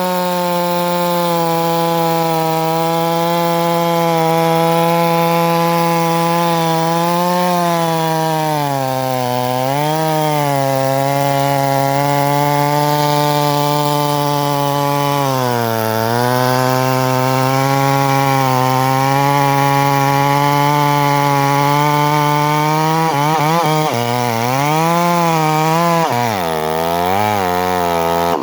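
Two-stroke chainsaw running at full throttle in a cut through wood, its pitch sagging twice midway as the chain bites harder under load. Near the end it revs up and down in quick swings as the throttle is worked.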